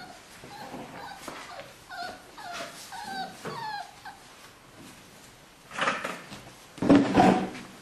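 Braque du Bourbonnais puppies whining and yipping in a run of short, high cries, followed near the end by two louder, harsher bursts, the second the loudest.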